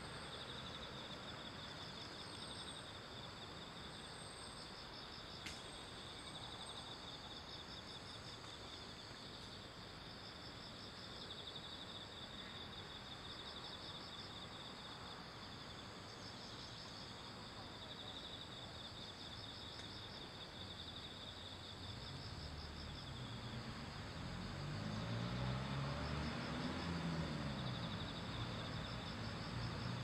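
A steady chorus of insects chirping in fast, high-pitched pulsed trills. In the last third a low engine drone swells and then fades.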